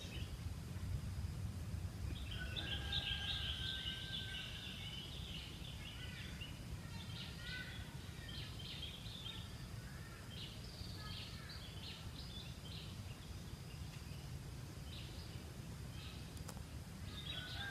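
Wild birds calling and chirping in the trees, a scatter of short high calls that thin out over the second half, over a faint steady low background rumble.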